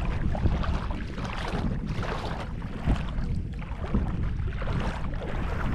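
Wind buffeting the microphone, a continuous uneven rumble, over the rush of the sea.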